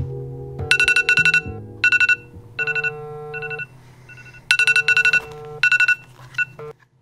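Mobile phone ringing: an electronic ringtone that comes in repeated bursts of rapid, high beeping notes, several times over, then stops near the end.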